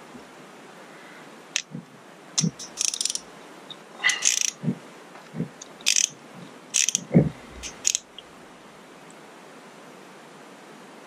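A socket ratchet clicking in short rattling bursts, mixed with clinks and knocks of metal tools and small parts, as screws are backed out of a bracket on an outboard distributor. It starts about a second and a half in and stops about three seconds before the end.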